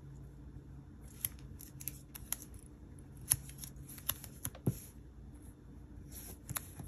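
Paper stickers being handled, peeled and pressed down onto a planner page: small crinkles and light clicks at irregular moments.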